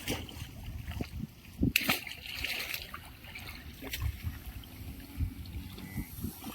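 Water splashing and sloshing irregularly in shallow canal water being worked for fish with a net, with a sharper splash about two seconds in.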